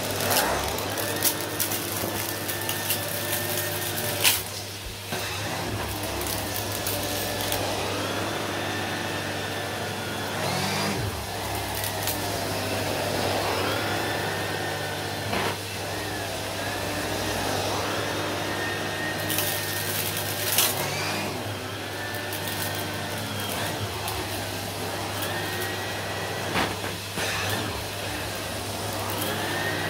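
Henry Extra canister vacuum cleaner running, its floor head pushed back and forth through a deep shag rug. The motor's pitch rises and falls with each stroke, over a steady low hum, with a few sharp clicks along the way.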